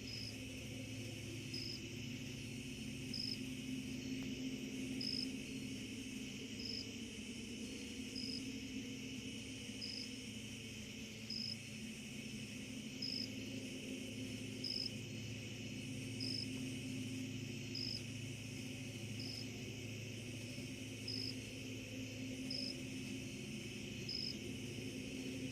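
Distant CSX freight locomotives' diesel engines working hard up a mountain grade, a faint, steady low drone. Over it, night insects keep up a steady high chorus, with one short high chirp repeating about every second and a half.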